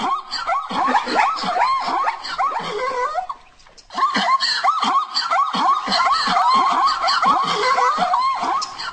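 Plains zebras calling: a fast, continuous run of short yelping barks, each rising and falling in pitch, with a brief pause about three and a half seconds in.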